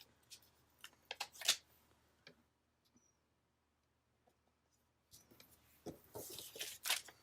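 Paper stickers and sticker sheets being handled: scattered small clicks and crinkles, a quiet stretch in the middle, then a rustle of paper with a sharp click near the end.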